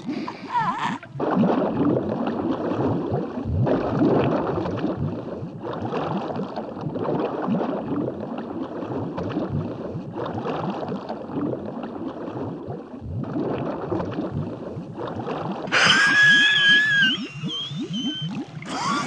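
Cartoon sound effect of water gurgling and bubbling, a long run of quick gulping gurgles for a camel drinking an oasis pool dry. Near the end a short, wavering high-pitched squeal cuts in over it.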